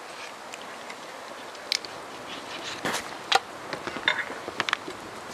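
A knife cutting up a freshly shot duck, with a scatter of short sharp clicks and knocks as the blade works and pieces go into a metal pot, the busiest stretch about three to five seconds in.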